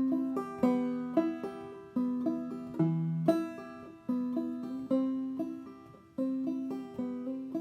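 Five-string banjo played clawhammer style: a steady run of plucked notes, each struck sharply and left to ring and fade.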